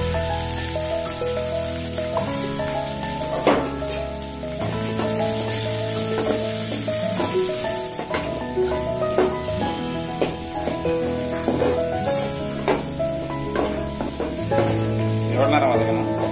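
Chopped shallots and green chillies sizzling in hot oil in a metal kadai, stirred with a steel spatula that scrapes and clinks against the pan every second or so, over instrumental background music.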